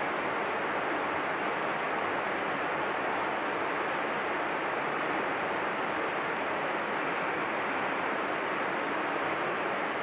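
Mountain stream water rushing steadily, an even hiss of flowing water that does not change.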